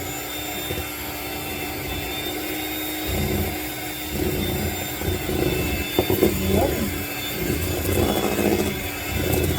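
Electric hand mixer running steadily, its beaters churning cake batter in a mixing bowl. From about three seconds in, the sound grows louder and more uneven as the beaters work the batter.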